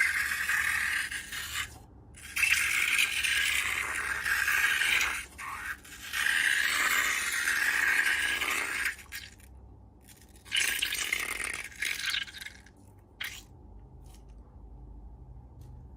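Scraping, rattling handling noise in several bursts of a few seconds each, dying down to near quiet in the last few seconds.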